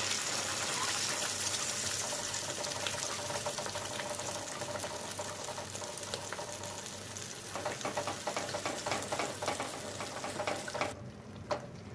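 Wet ground tomato-onion paste sizzling as it hits hot ghee, butter and oil in a pan, the sizzle slowly dying down. In the second half a spoon knocks and scrapes as the paste is stirred.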